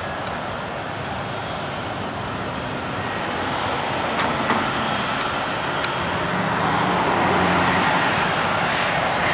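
Airbus A320-214 on final approach with its landing gear down, its CFM56 turbofan engines making steady jet noise that grows gradually louder as the airliner nears.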